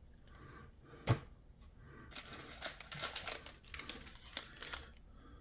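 Trading cards and their packaging being handled: a sharp click about a second in, then about three seconds of irregular crinkly rustling.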